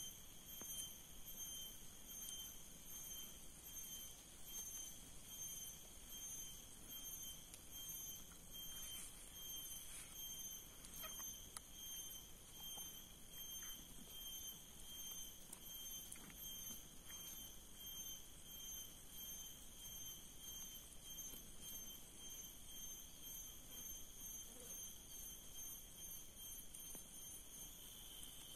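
Insects chirring steadily, a faint, rapidly pulsing high-pitched tone. A few soft clicks and rustles come from hands working the snare's wire and bamboo.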